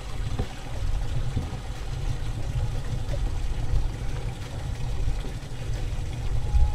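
Low, uneven rumble of wind buffeting the microphone on an open boat deck, wavering in loudness, with no distinct clicks or tones.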